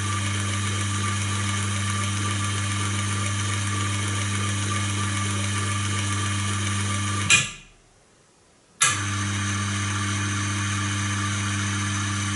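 Inverter-driven geared electric motor running with a steady hum and a high whine, cutting off with a click about seven seconds in and starting again a second and a half later as the mixing shaft cycles up and down.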